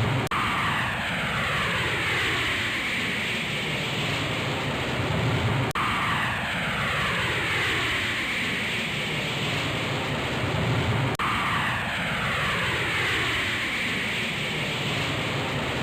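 Airplane engine noise passing by, several tones falling steadily in pitch as it goes. The same pass of about five and a half seconds repeats three times, each restart marked by an abrupt cut.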